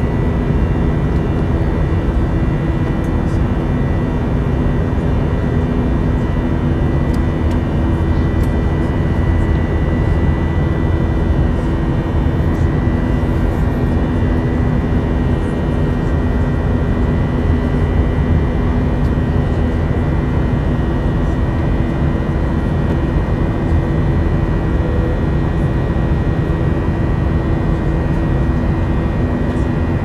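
Jet airliner cabin noise in flight: a steady roar of engines and airflow, with a low drone and a faint high whine held constant throughout.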